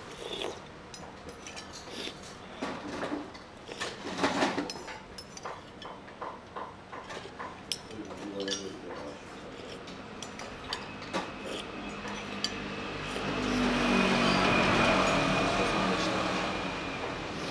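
A metal spoon clinks and scrapes against a porcelain soup bowl as the last of the soup is eaten. About two-thirds of the way through, a passing road vehicle's engine swells up and stays loudest near the end.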